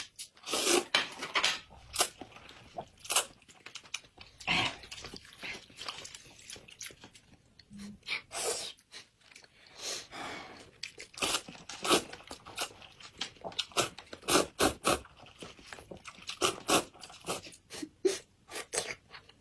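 People slurping and chewing rice noodles: an uneven string of short, wet slurps and mouth sounds with brief pauses between them.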